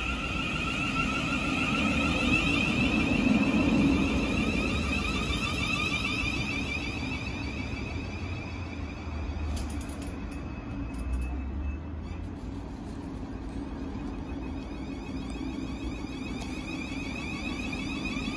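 Thameslink Class 700 (Siemens Desiro City) electric multiple unit pulling into the platform and coming to a stand. The running rumble is loudest about three to four seconds in, under a steady high-pitched electrical whine that carries on while the train stands.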